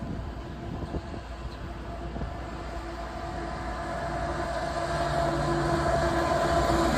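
CSX diesel freight locomotives approaching, their engine drone growing steadily louder as the train nears.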